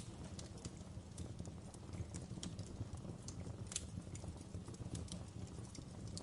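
Campfire crackling: a wood fire burning with frequent irregular pops and snaps over a low, steady rumble. A louder crack comes right at the start and another about halfway through.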